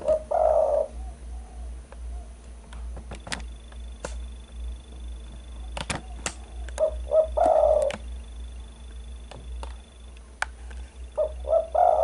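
Spotted dove cooing: three phrases about six seconds apart, each a couple of short notes running into a longer coo. Sharp clicks fall between the phrases, over a low steady hum.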